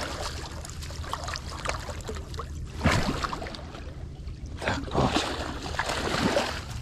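A hooked carp splashing and thrashing at the water's surface close to the bank, with several louder splashes spread through the few seconds.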